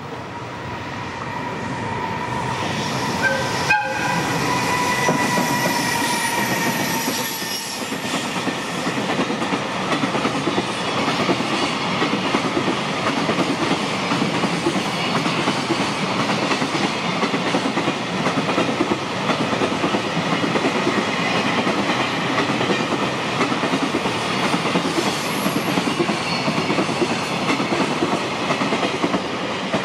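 JR Freight EF210 electric locomotive sounding a courtesy horn as it passes, a held tone for several seconds starting about three seconds in. A long train of container flatcars follows, rolling by with a steady clickety-clack of wheels over the rail joints.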